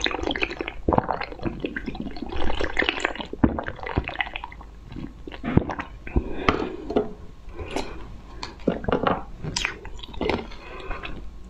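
Close-miked wet slurping and chewing of jelly sucked out of glass test tubes, with many short sharp clicks and squishes throughout.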